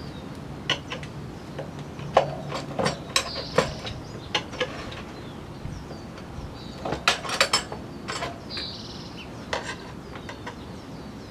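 Steel tire spoons clinking and knocking against the rim of a rear 18-inch motocross wheel as the tire's first bead is levered off: irregular sharp metallic clicks, with a quick cluster of them about seven seconds in.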